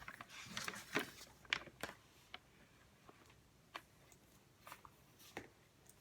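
Small handling noises at a desk: a cluster of rustles and taps in the first two seconds, then a few scattered light clicks.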